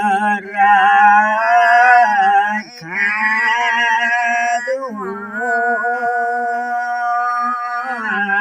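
Elderly man singing a Nepali folk song unaccompanied, in long drawn-out notes with a wavering pitch. He breaks off briefly for breath twice, about a third and about halfway through.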